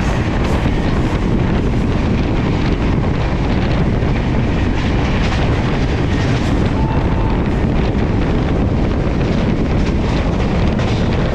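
Steady rush of a moving passenger train, with wind buffeting the microphone.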